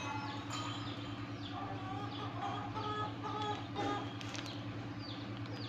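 Birds chirping and calling, many short falling chirps throughout, over a steady low hum.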